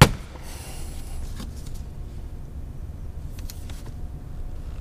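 A sharp click, then faint scattered ticks over a low steady rumble: a Ram 1500's plastic dash side panel being pried loose by hand, its clips coming free.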